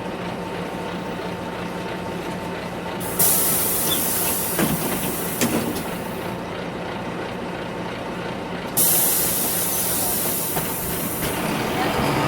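Inside a city bus: the engine drones steadily, and twice a sudden loud hiss of compressed air from the bus's pneumatic brakes or doors bursts in, about three seconds in and again near nine seconds, the second fading away over a couple of seconds. A couple of short sliding squeaks sound during the first hiss.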